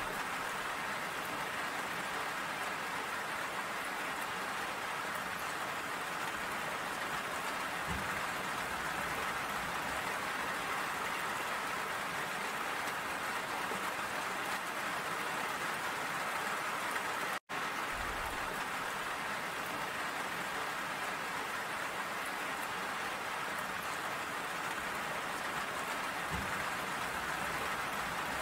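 Steady rain falling and pattering on surfaces, an even hiss. About two-thirds of the way through, the sound cuts out for an instant and then carries on unchanged.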